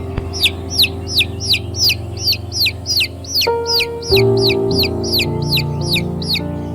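Baby chicks peeping: a steady run of high calls, each sliding down in pitch, about three a second. Soft sustained music plays underneath, changing chord about three and a half seconds in and again at four.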